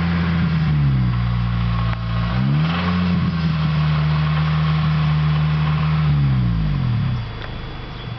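Acura RSX 2.0-litre four-cylinder K20 engine pulling through the low revs while driving. The note dips about a second in, climbs again, holds, then falls away near the end. The engine carries a ticking under acceleration between 1,000 and 3,000 rpm, which the owner later traced to a spun bearing.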